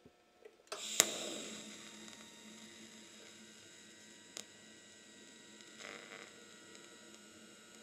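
TIG welding arc struck with a sharp crack about a second in, then running as a faint steady hum and hiss while filler rod is fed into a chamfered hole in a steel hydraulic cylinder.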